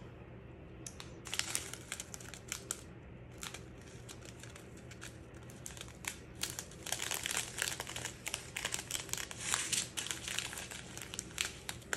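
A strip of small plastic zip-lock bags of diamond-painting drills being handled and unfolded, crinkling in irregular crackles that grow busier in the second half.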